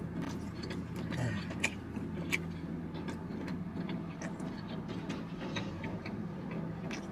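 Chewing on a fried chicken wing: faint, scattered wet clicks and smacks over the steady low hum of a parked car, heard inside its cabin.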